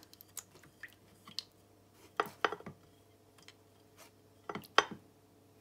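A silicone spatula scraping and tapping a few times against a cooking pot and plate as the last of a sauce is poured out and drips into the pan. There are three short clusters of clicks and scrapes, with quiet between them.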